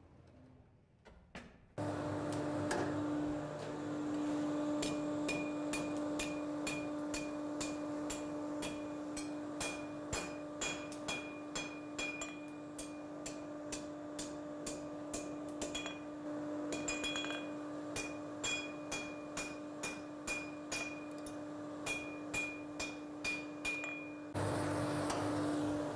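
Blacksmith's hand hammer striking red-hot iron on an anvil: a long run of blows, about two a second, each with a short metallic ring from the anvil, over a steady hum in the forge.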